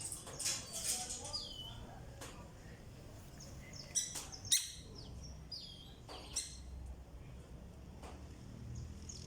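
Birds chirping in short repeated notes that slide down in pitch, with a few sharp clicks about four and six and a half seconds in.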